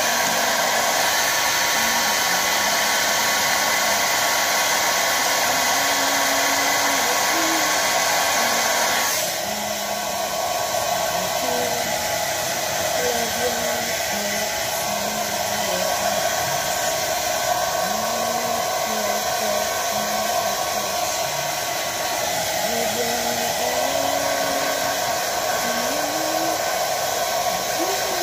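Handheld electric hair dryer blowing steadily on a small dog's fur. About nine seconds in, its sound drops slightly and changes tone.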